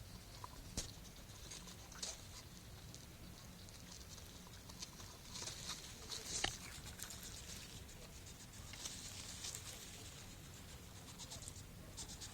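A hedgehog moving about: a scatter of small clicks and rustling scratches, busiest and loudest a little past the middle, over a steady low hum.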